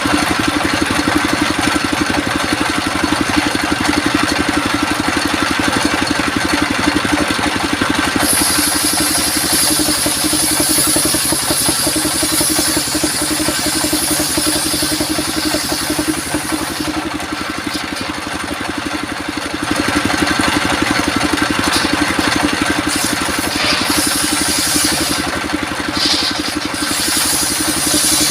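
Engine-driven circular sawmill running steadily. About a third of the way in, a high hiss joins as the blade cuts coconut wood; it drops out for a few seconds past the middle, then returns.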